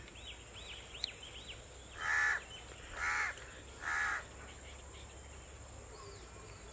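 A crow cawing three times, about a second apart, with faint high chirps from a smaller bird near the start.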